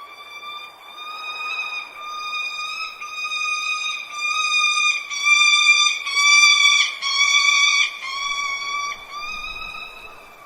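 A hawk calling: a long run of about a dozen repeated, slightly arched screaming calls, one straight after another. They grow louder toward the middle and fade toward the end.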